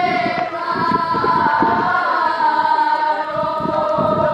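A group of women singing a folk song together, holding long drawn-out notes.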